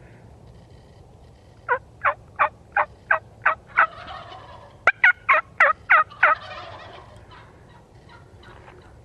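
Wild turkey yelping: two runs of short, sharp, falling yelps at about three a second, seven in the first run and six louder ones in the second, with a second's pause between.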